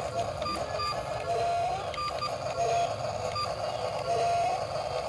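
Remote-control toy excavator's small electric gear motors whirring as the arm and bucket move, a steady whine that rises in pitch three times.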